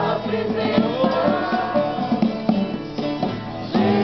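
Acoustic guitar strummed to accompany a sung worship song, the voices holding notes over the chords. The music drops briefly about three seconds in, then comes back with a strong strum near the end.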